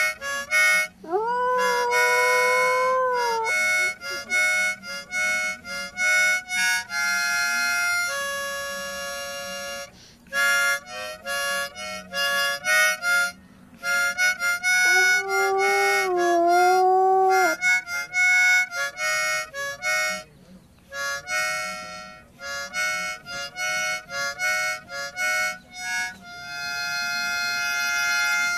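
A dog howling along to harmonica chords. One long rising howl comes about a second in, and another howl with a wavering pitch comes about halfway through. Between the howls, short chords play on and off.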